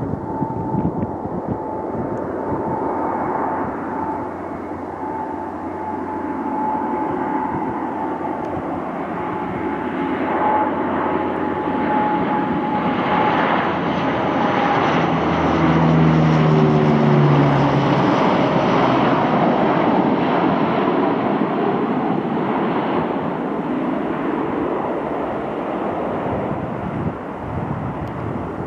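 Ilyushin Il-18's four Ivchenko AI-20 turboprop engines on landing approach: a steady whine with propeller drone that grows louder as the aircraft passes about halfway through, the pitch dropping as it goes by, then fading.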